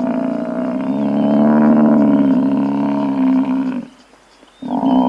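Buffalo calling: one long, low bellow of about four seconds, then a second bellow begins near the end.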